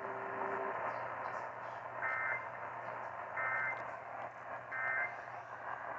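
AM radio static with three short bursts of EAS digital data tones, each under half a second and about 1.4 seconds apart, starting about two seconds in: the end-of-message code that closes the AMBER Alert broadcast. A low steady tone under the static stops under a second in.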